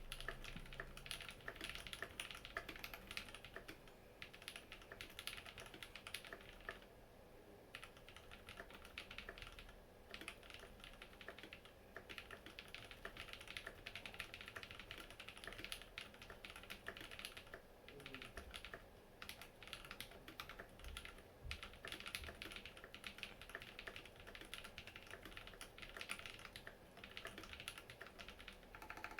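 Typing on a Matrix Lab Noah mechanical keyboard with lubed Holy Panda tactile switches in an aluminium plate: a fast, steady stream of keystroke clacks. There are brief pauses about seven and ten seconds in.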